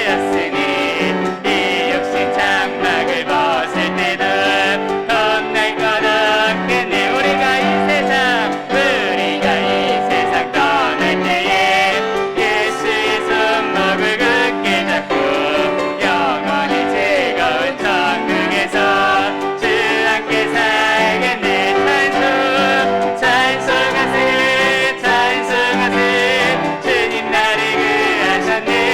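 A church praise team performing a contemporary worship song: singers with piano accompaniment, playing continuously.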